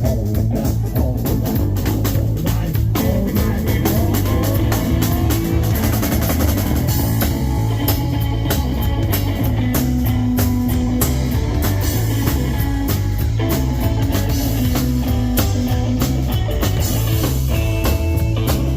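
Live blues-rock band playing an instrumental stretch of a boogie song: guitar over a steady bass and drum-kit groove, with no singing.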